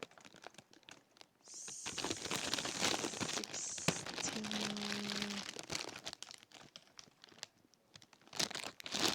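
Plastic packaging crinkling and rustling as small toys are handled, heaviest in the first half, with more rustles near the end.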